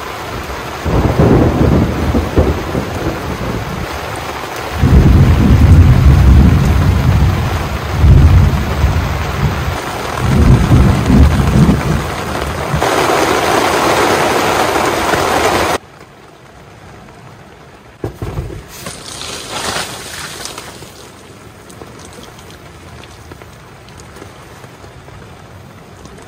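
Thunderstorm: heavy rain with rolls of thunder rumbling again and again through the first half. Near the middle the sound drops suddenly to quieter steady rain on the tent, with a couple of sudden thuds a few seconds later.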